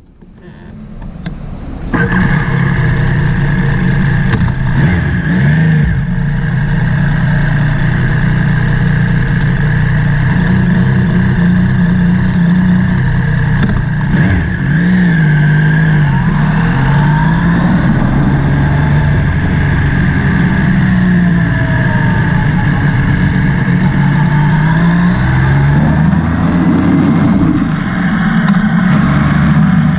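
Motorcycle engine running while riding, loud from about two seconds in, its pitch rising and falling again and again with the throttle, over a steady rush of road and wind noise.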